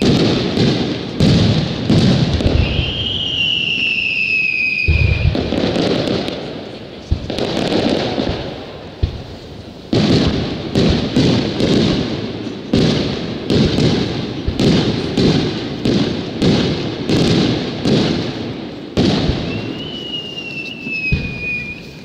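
Aerial firework shells launching and bursting in a dense run of bangs and booms. Two long whistles slide slightly down in pitch, one about three seconds in and one near the end. In the second half the bursts come in a quick, even series of about two bangs a second.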